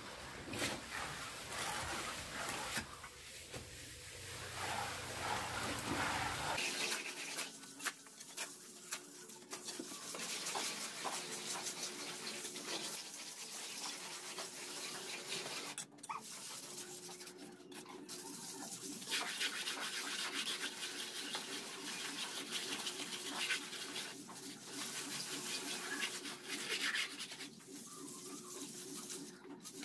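Steel mason's trowel scraping and spreading cement mortar along the top of a concrete hollow-block wall, in quick repeated strokes broken by short pauses.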